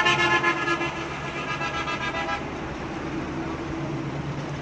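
A vehicle horn sounds for about two and a half seconds, then stops, over the steady low hum of a mobile crane's engine running.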